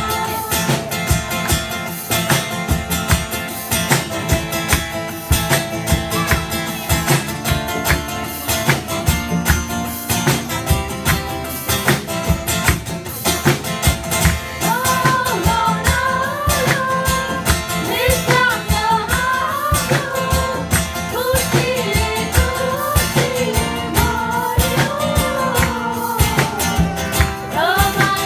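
Music with guitar over a steady beat, and a voice singing a melody from about halfway through.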